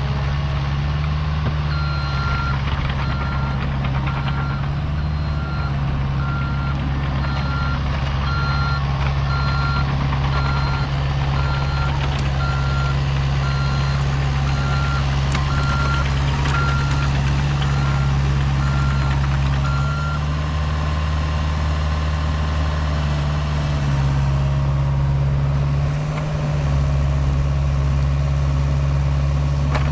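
Diesel engine of a Caterpillar earthmoving machine running steadily under work, with its backup alarm beeping evenly for most of the first two-thirds, then stopping as the machine stops reversing.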